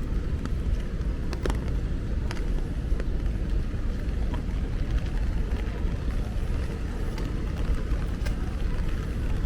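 Rainy city street ambience: a steady low rumble with scattered sharp ticks.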